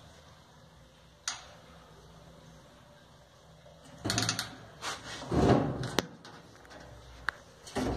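Handling sounds on a Whirlpool clothes dryer's sheet-metal cabinet: a click, then a cluster of knocks about four seconds in, a louder scrape just after, and a sharp click about six seconds in, with another knock near the end.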